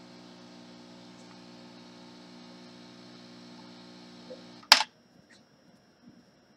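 A steady low electrical hum made of several tones, cut off abruptly by a sharp click near the end, leaving only a faint high-pitched whine.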